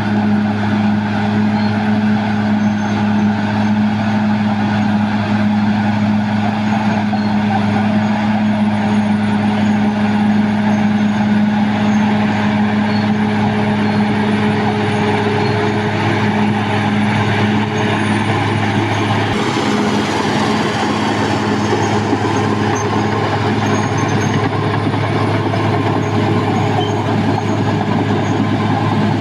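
Caterpillar D6R XL bulldozer's diesel engine running steadily under work, with a constant low hum. About two-thirds of the way through, a rougher, noisier grinding layer joins in over the engine.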